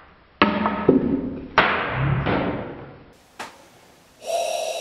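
Dull thumps or knocks, two about a second apart, each fading away slowly, then a single click and a short steady tone near the end.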